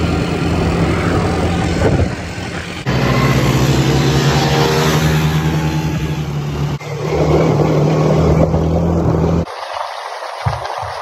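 Quad-bike (ATV) engines running at riding speed, a steady engine drone with a rush of noise over it. The sound changes abruptly at cuts, about three seconds in and again about seven seconds in. Near the end the low engine tone drops out, leaving a thinner hiss.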